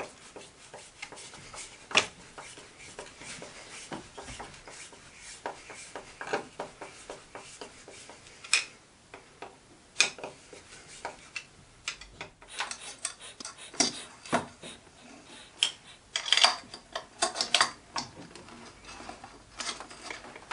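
Hand screwdriver turning screws into a chrome metal wall bracket, with scraping and a run of sharp metallic clicks and clinks as the bracket and screws are handled, busiest in the second half.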